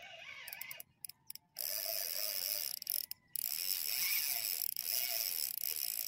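Fishing reel running under load as a hooked fish is played: a continuous mechanical buzz that starts about a second and a half in, with brief stops.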